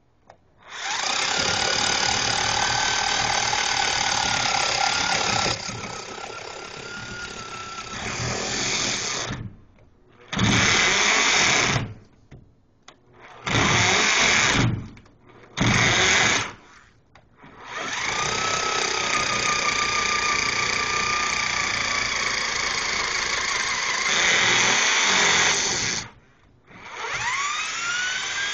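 Electric drill turning an auger bit into the ground, boring a deep hole in soil. The motor whine runs in stops and starts: two long runs with a few short bursts between, and a rising whine as it spins up again near the end.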